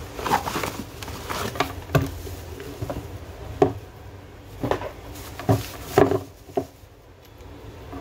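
Cardboard box and thin plastic bag being handled while an electric drill is unboxed: scattered crinkling, scraping and light knocks at irregular intervals, with a quieter spell near the end.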